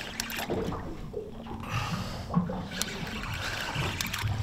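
Seawater lapping and trickling against the side of a boat, with a few faint clicks.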